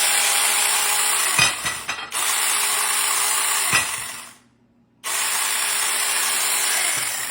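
Small handheld chainsaw running in three bursts of a couple of seconds each, with a steady motor hum and chain buzz, starting and stopping abruptly between them.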